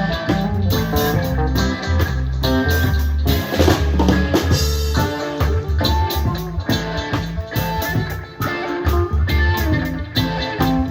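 Live band playing an instrumental passage: drum kit keeping a steady beat under guitar, with a strong low bass line.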